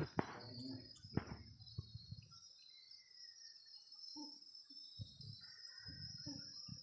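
Faint rustling and a few soft knocks from puppies wrestling on a rug, heard over a steady high hiss. The sharpest knocks come in the first two seconds.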